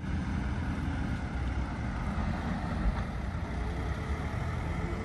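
A van's engine runs as it pulls away, heard as a steady low rumble under wind noise on the microphone.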